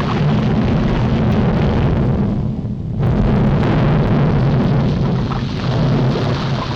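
Cartoon sound effect of a volcano erupting: a loud, continuous low rumble and crashing that eases briefly about two and a half seconds in, then swells again.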